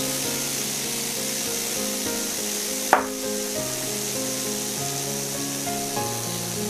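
Thick-cut bacon sizzling steadily as it starts to fry in a nonstick pan on medium heat, under background music. A single sharp click comes about three seconds in, and a wooden spoon starts scraping and stirring the bacon near the end.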